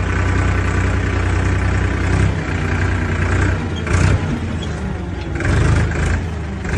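A vehicle engine running steadily at idle, then rougher and uneven, with short louder swells about four seconds in and again near six seconds.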